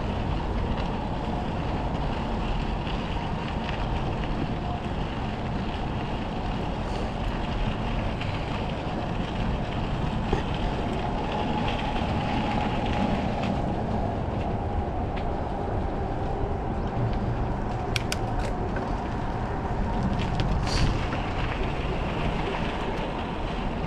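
Steady wind rush on the microphone and tyre noise from a bicycle rolling along a trail, with a few brief clicks near the end.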